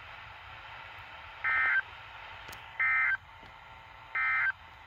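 Three short bursts of SAME/EAS digital data warble, each about a third of a second long and spaced a little over a second apart, over a steady low hiss: the end-of-message code that closes a NOAA Weather Radio alert.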